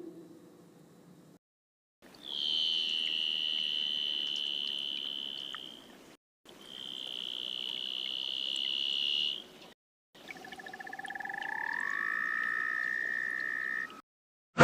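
Made-up leopard seal call sound effects: three long, steady, whistle-like tones separated by dead silence, the first two high and level, the third pairing a level tone with a lower one that slides upward about halfway through.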